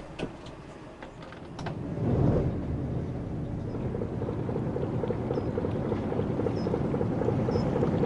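A few faint clicks, then a boat's inboard engine starts about two seconds in and runs steadily with a low, even beat.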